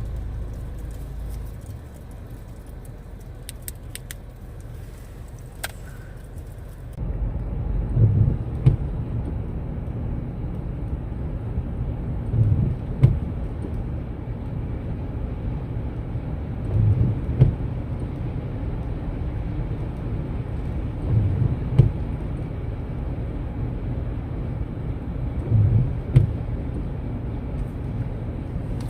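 Car running, heard from inside: a steady low rumble that sets in abruptly about seven seconds in, with a low thump about every four and a half seconds. The first seven seconds are quieter, with a few faint clicks.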